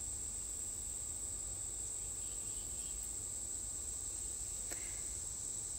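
A steady, unbroken high-pitched whine, with one faint click near the end.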